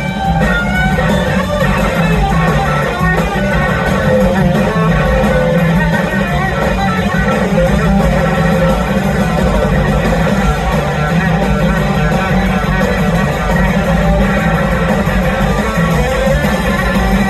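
A live band with an electric guitar taking the lead over drums and bass, loud and continuous. The guitar's notes bend and glide in pitch.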